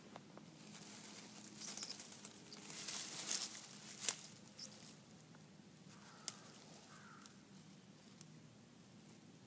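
Rustling and crackling of grass and dry leaves as a tabby cat paws at a star-nosed mole, loudest two to four seconds in, with a sharp click about four seconds in and another a couple of seconds later; quieter after that.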